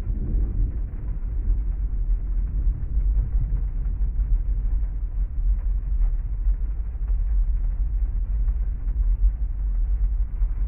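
Heavy rain storm ambience heard from inside a parked car: a steady deep rumble with a faint crackle of drops above it, with no distinct thunderclap.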